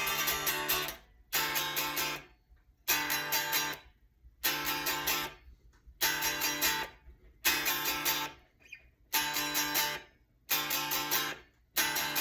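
Unplugged electric guitar strummed without an amp: short bursts of strummed chords, each ringing for about a second and then stopped, eight or so in a row with brief pauses between.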